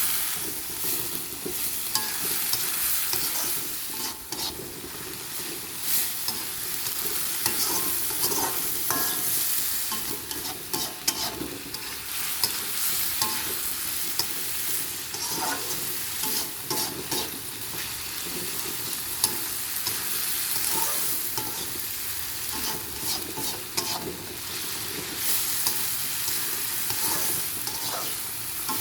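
Stir-fry of long beans, bean sprouts and tempeh sizzling in a pan while a spatula stirs it, with frequent short clicks and scrapes of the spatula against the pan over a steady hiss.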